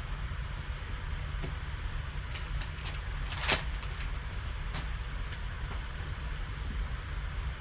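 A few brief rustles and clicks of trading cards and foil pack wrappers being handled, the loudest about three and a half seconds in, over a steady low background hum.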